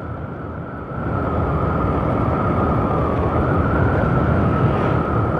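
Honda Vario 150 scooter's single-cylinder engine running as it rides over rough asphalt, a steady high whine sitting over the engine and road rumble. The sound grows louder about a second in.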